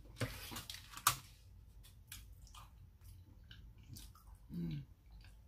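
Close-miked eating sounds: chewing, wet lip smacks and small clicks, with a sharp click about a second in. A short hummed murmur about four and a half seconds in.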